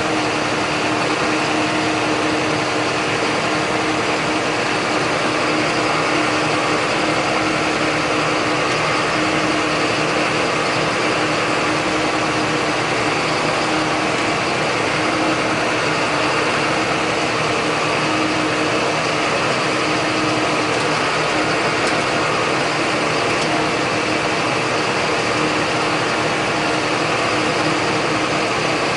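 John Deere 8100 tractor's six-cylinder diesel engine running at a steady speed, pulling a John Deere 466 baler through the hay, with a constant drone and no change in pitch.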